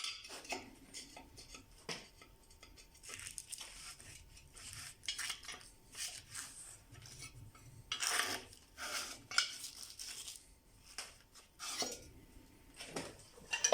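Small steel workpieces being handled: irregular metallic clinks, knocks and scrapes.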